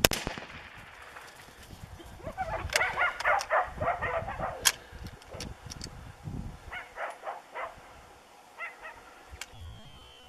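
A single rifle shot cracks at the start, then a shot warthog squeals in a run of short, high calls and squeals again in shorter bursts later as it lies kicking. A few sharp clicks come in between.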